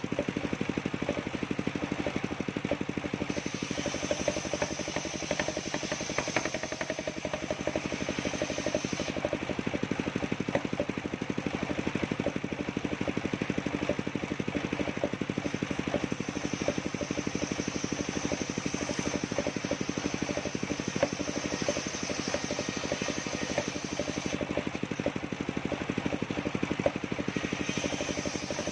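Engine of a circular sawmill running steadily, with a high thin whine that comes and goes several times.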